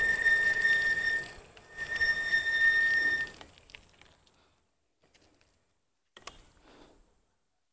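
Two long, high electronic beeps, each about a second and a half with a short gap between, over steady road and wind noise; the sound then drops to near silence, with one click about six seconds in.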